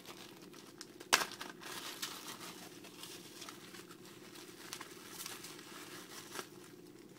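Plastic toy packaging crinkling and rustling as the figure and its small parts are unwrapped and handled, with a sharp click about a second in.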